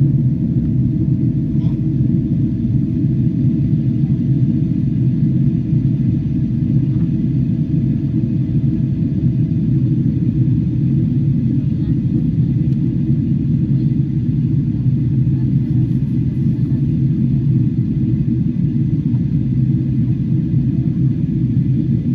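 Steady low cabin rumble of a Boeing 777-300 in flight on its approach, airflow and engine noise heard from inside the cabin, with a faint steady hum that drops away about halfway through.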